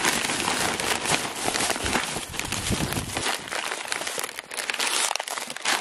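Plastic grocery bag and snack packets crinkling and rustling as hands rummage through them. The low rumble thins out about halfway through.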